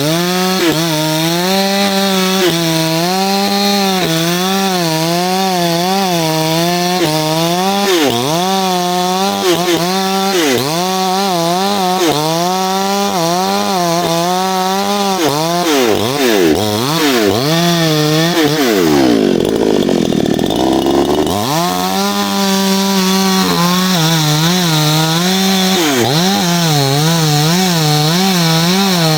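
Two-stroke chainsaw running at high revs and cutting wood, its engine note wavering up and down as the chain works under load. About two-thirds through, the engine drops away steeply and then revs back up.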